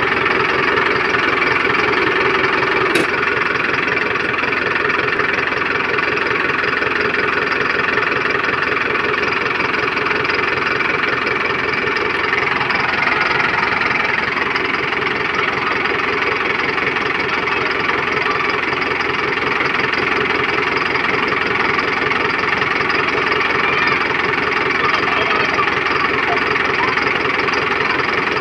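Mahindra Arjun 555 DI tractor's four-cylinder diesel engine running steadily, heard close up beside its fuel injection pump.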